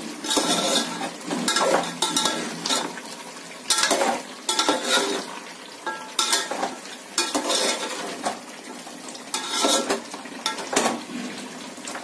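A metal spoon scraping and stirring meat and spices in a metal pot, in irregular strokes roughly one or two a second. Under it is the sizzle of the meat frying with its masala.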